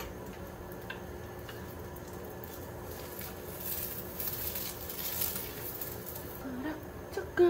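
Faint sizzling of an egg frying in oil in a pan, thickening in the middle, over a steady low hum.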